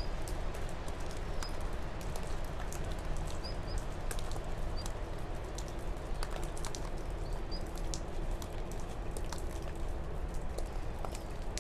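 Steady hiss with many scattered light ticks and patter, a faint low hum, and a few faint high chirps.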